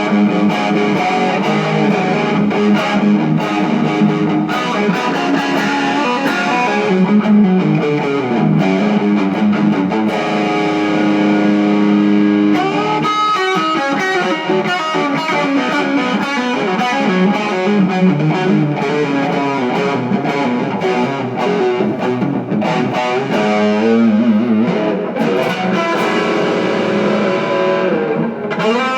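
Electric guitar played through effects, sustained notes and chords ringing continuously; the lowest notes drop out about halfway through.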